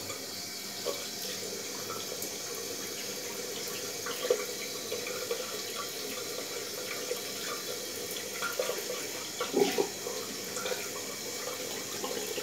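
Water running steadily from a tap into a bathroom sink, with a few brief splashes as a safety razor is rinsed and a face is washed under it.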